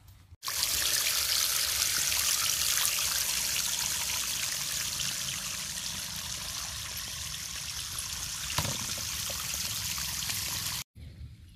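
Steady rushing, trickling water noise, which cuts in abruptly about half a second in and stops just as abruptly near the end.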